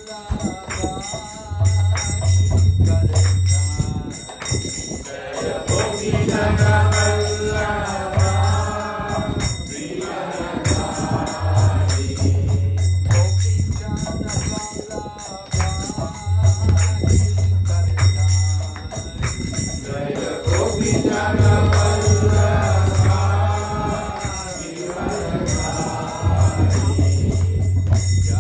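Devotional music: singing in phrases over constant jingling percussion, with a low held note that returns every few seconds.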